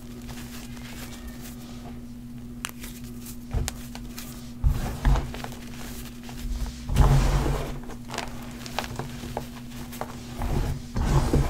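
Hands pressing and squeezing a pile of crushed green chalk powder: a few soft thuds with crunching, the loudest about seven seconds in, and faint crackles in between.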